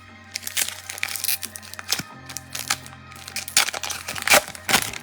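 Foil trading-card pack wrapper being crinkled and torn open, a run of irregular crackles, over steady background music.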